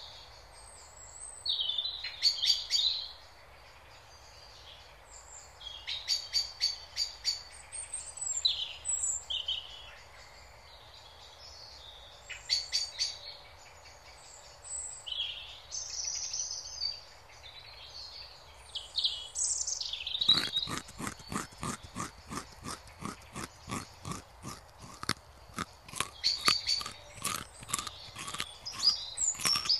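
Songbirds singing and calling, with short chirps and fast rattling trills. About two-thirds of the way in, a rabbit starts chewing grass close by, a crisp crunching at about four bites a second, with the birdsong going on over it.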